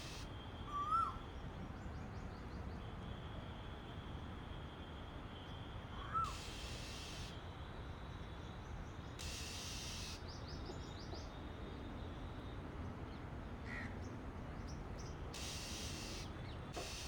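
Bird calls: an Asian koel's short rising-then-dipping "ku-oo" call comes twice, about a second in and about six seconds in, and is the loudest sound. A female Oriental magpie robin gives four harsh, raspy calls and a few faint high chips.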